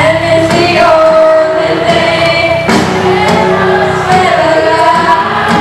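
A song sung by a group of voices with backing music, the melody holding one long note for the first two to three seconds before moving on.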